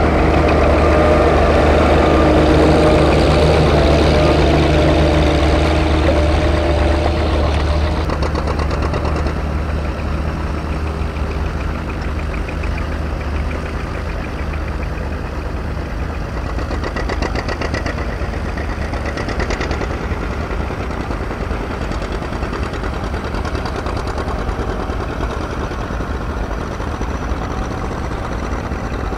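Antique farm tractor engines running under load while pulling plows. The nearest tractor, an Oliver, is loudest for the first several seconds as it passes, then the engine sound settles lower and steadier.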